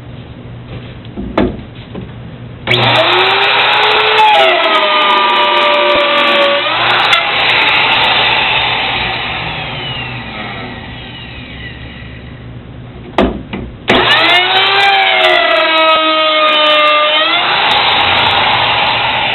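Electric router cutting a 1/4-inch-deep dado along a jig, run twice: each time a click, the motor starts and spins up, its pitch sags as the bit takes the cut and recovers, then the sound slowly dies away.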